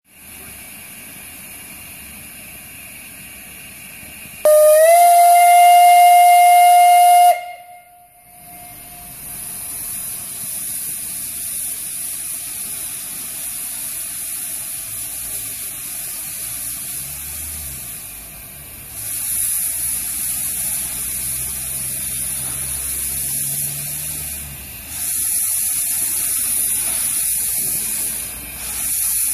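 Narrow-gauge steam locomotive's whistle blown once, a loud single-pitched blast of about three seconds that rises slightly as it opens and cuts off sharply. It is followed by a continuous hiss of venting steam that swells louder twice.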